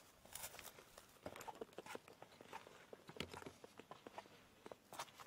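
Faint footsteps on dry grass and loose stones, a string of irregular small crackles and clicks.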